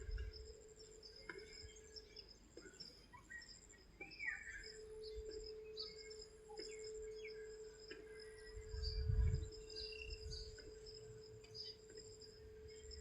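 Faint outdoor ambience: a steady, pulsing insect trill with scattered short bird chirps, including one falling chirp. A low rumble comes about two-thirds of the way through.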